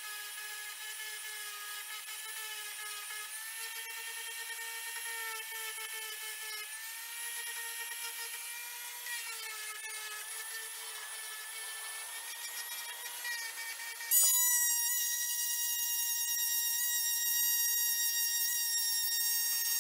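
Variable-speed random orbital sander running at its lowest speed with a worn 80-grit pad, sanding through layers of paint to distress it, a steady, slightly wavering whine. About 14 seconds in it gives way abruptly to the louder, higher-pitched whine of a small triangular-pad detail sander.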